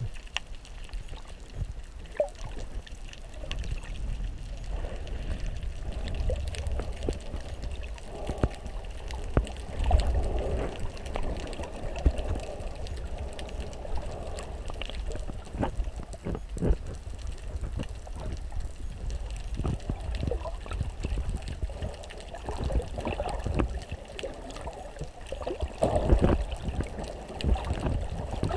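Sea water moving around a submerged camera, heard muffled through the GoPro's waterproof housing: a low rumble and gurgling wash with scattered clicks, swelling louder about ten seconds in and again near the end.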